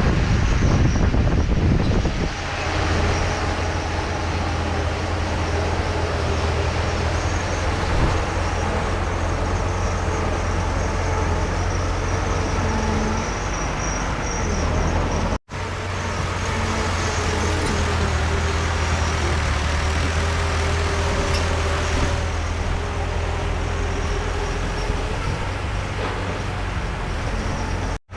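Heavy diesel earthmoving machinery, bulldozer and dump trucks, running with a steady low engine drone and rattling noise over it.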